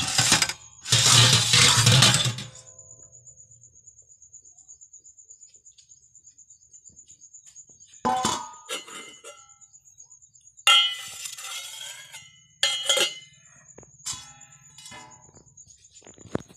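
Stainless steel dishes and lids being handled. A loud metallic scraping clatter fills the first two seconds; after a quiet stretch come a series of sharp clinks and ringing knocks of steel on steel.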